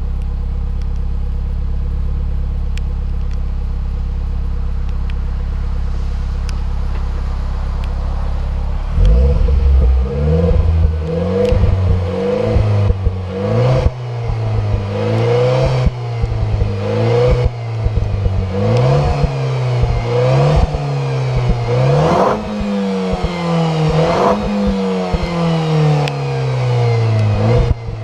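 Renault Clio IV RS's turbocharged four-cylinder engine through its original exhaust in Sport mode, idling steadily, then revved up and down again and again from about nine seconds in, with sharp cracks among the revs.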